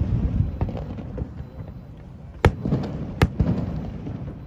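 Aerial fireworks shells bursting: two sharp, loud bangs about two and a half and three seconds in, each followed by a rolling rumble, with smaller pops in between.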